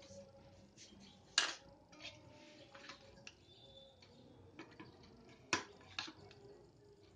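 Steel spoon clinking against a steel plate and small bowls while fruit salad is spooned out. There are a few sharp clinks: the loudest about a second and a half in, and two close together near the end.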